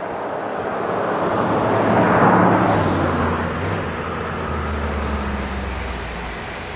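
ATR 42-600 turboprop airliner's Pratt & Whitney PW127 engines and propellers running as it taxis on the runway: a steady low drone with a broad hiss that swells about two seconds in and then eases off.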